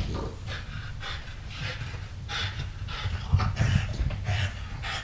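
Two small dogs, a French bulldog and a puppy, panting and snorting in short, irregular breaths as they play-wrestle.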